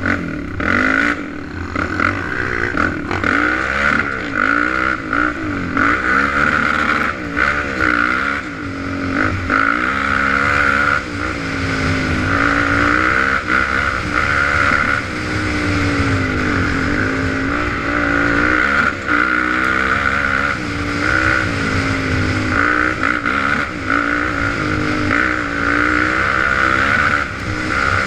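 Suzuki LTZ 400 quad's single-cylinder four-stroke engine being ridden hard on a dirt trail, revving up and down continually as the rider works the throttle, its pitch rising and falling every second or two.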